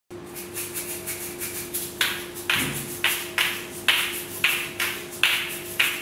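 Asalato (kass kass) shaken in a steady rhythm: the seeds rattle and the gourds click with each stroke. It is soft for the first couple of seconds, then louder, with about two accented strokes a second.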